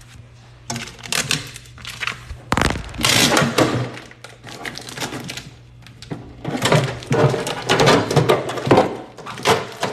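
Irregular clattering, knocking and rattling of objects being handled, over a faint steady low hum.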